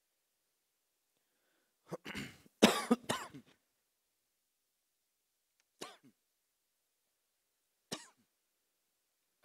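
A person coughing: a short fit of several coughs about two seconds in, then two single coughs later, with near silence between.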